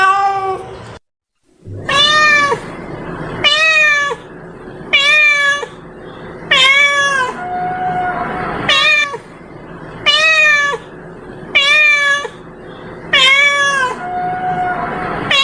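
A domestic cat meowing over and over, about one meow every second and a half, each call bending up and then dropping at its end. The recording is played as a lure to call cats.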